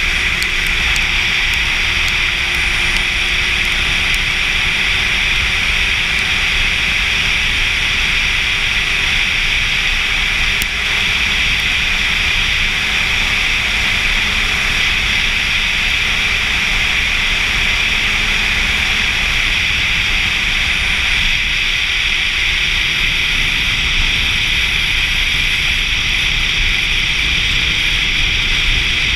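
Steady wind rush over the camera on a sportbike cruising at road speed, with a faint, even engine note underneath that sinks slightly over the first half.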